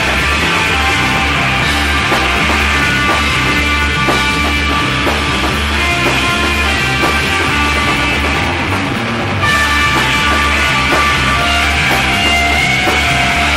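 Instrumental heavy psychedelic rock: a loud, dense band with a steady pulsing bass and sustained guitar lines. About nine seconds in, the top end thins out briefly, then the full band comes back slightly louder.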